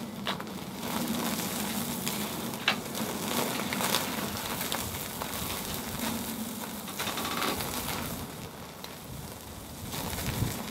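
Marbled beef steak sizzling on the wire grate of a tabletop ceramic grill over open flame, a steady hiss with scattered crackles and pops.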